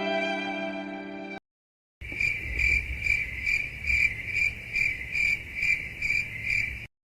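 Cricket chirping sound effect: a steady train of high chirps, about two a second, that starts about two seconds in and cuts off abruptly near the end. Before it, a sad violin music clip fades out in the first second and a half.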